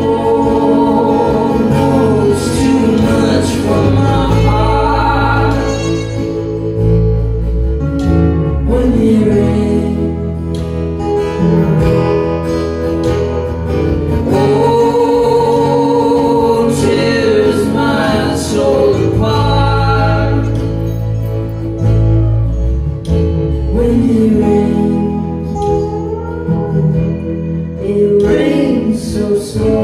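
Live acoustic band playing a song: two acoustic guitars, electric bass and drums, with sung vocals over them throughout.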